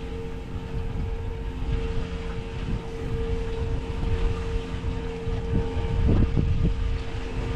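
A boat's motor humming steadily at one pitch, with wind rumbling on the microphone.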